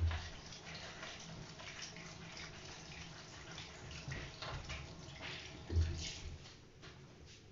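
Saucepan of water with lemon, lime, ginger and tea bags heating on a gas hob, giving faint irregular bubbling and ticking. There is a low thump at the start and another about six seconds in.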